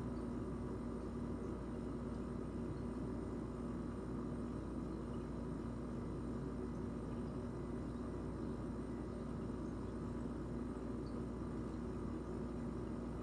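Steady room hum and hiss with no distinct events.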